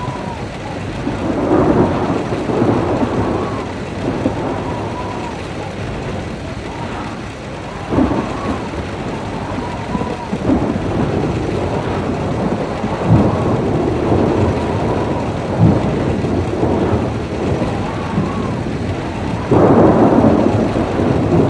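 Steady heavy rain with rolling thunder, broken by several sudden cracks and rumbles, the loudest near the end.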